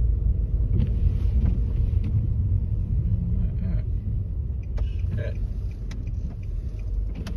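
Low, steady rumble of a Nissan Maxima's engine and tyres as it pushes through snow on an unplowed street, heard from inside the car, with a few short clicks about two-thirds of the way through.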